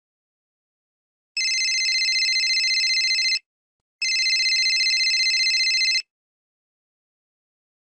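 Telephone ringing: two rings, each about two seconds long, with a short pause between them.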